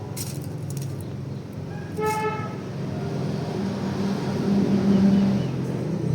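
A short single horn-like toot about two seconds in, over a steady low rumble that swells louder near the end, with a few light clicks in the first second.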